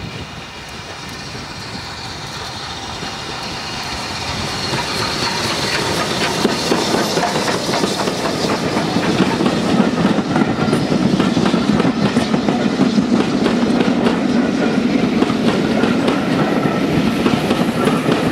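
BR Standard Class 4 tank steam locomotive approaching and passing with its train, the rolling noise growing steadily louder over the first half. The coaches' wheels then clatter over the rail joints in a steady clickety-clack as they roll past.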